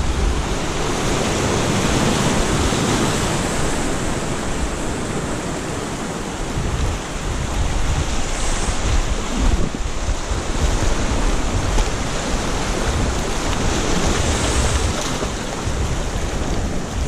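Sea surf breaking and washing over rocks, a steady rushing wash, with wind buffeting the microphone.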